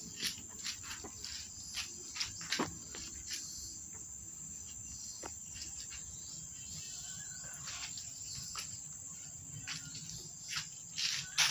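Steady high-pitched insect drone, typical of crickets, with many short sharp clicks scattered through it, bunched in the first few seconds and again near the end.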